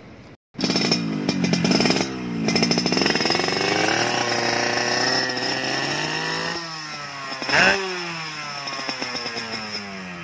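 Yamaha RX-King's single-cylinder two-stroke engine, in drag-race tune, revving up and down several times. There is a brief loud burst about three-quarters through, and the revs fall away near the end.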